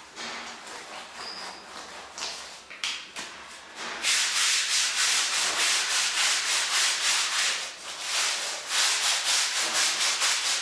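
Clothes being scrubbed by hand in washing water, fabric rubbed hard against fabric. Quieter, scattered rubbing at first, then about four seconds in a fast, steady scrubbing of about three to four strokes a second, with a short break near the end before it picks up again.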